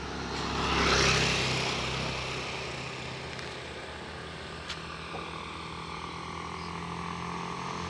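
A motor scooter's engine approaching and passing close by, loudest about a second in, its pitch dropping as it goes by, followed by a steadier low engine hum.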